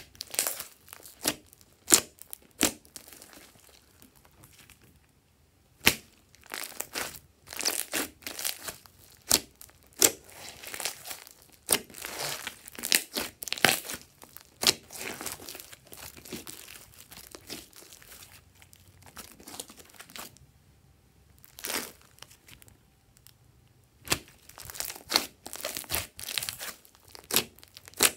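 Hands squishing and stretching glossy slime: sticky pops, clicks and crackles in irregular bursts, with a few short quieter gaps.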